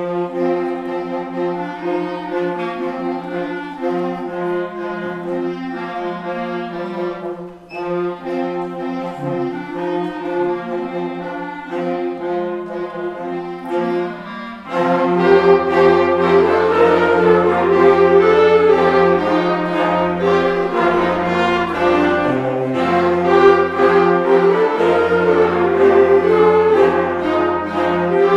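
A school concert band playing, with flutes, clarinets, saxophones and French horns holding sustained notes. About halfway through the full band comes in much louder over a low bass line.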